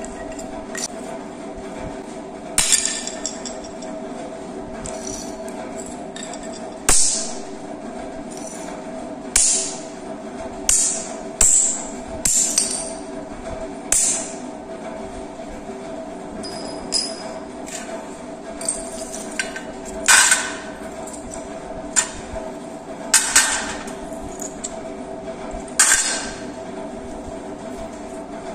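Terracotta clay kulhad being smashed into shards with a metal tool on a hard floor: sharp cracking, clinking strikes at irregular intervals, some in quick pairs, over a steady hum.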